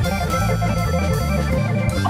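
Background instrumental music with an organ-like lead over a bass line.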